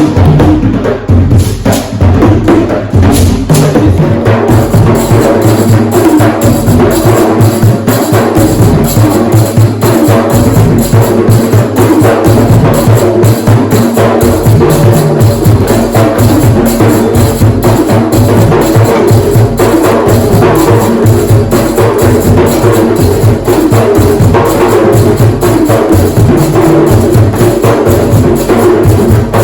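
Hand drums played together in a continuous, fast rhythm of many closely spaced strikes.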